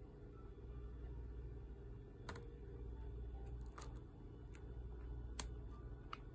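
Thin clear plastic food container clicking under fingers as it is handled: a few sharp, scattered clicks, about four of them loud, over a low steady hum.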